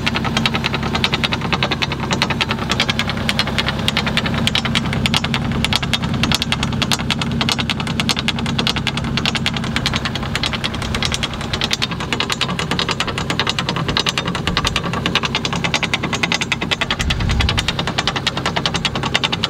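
A machine's engine running steadily, with a fast, even knocking beat over a low hum.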